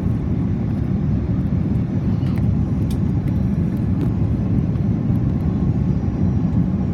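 Cabin noise inside an Airbus A330-343 airliner, whose Rolls-Royce Trent 700 engines and airflow make a steady low rumble, with a few faint rattles now and then.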